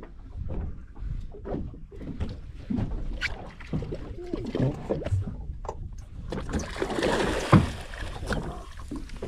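Water splashing as a hooked fish thrashes at the surface beside the boat. The splashing is loudest about seven seconds in and carries one sharp knock, over a steady low rumble and scattered light knocks.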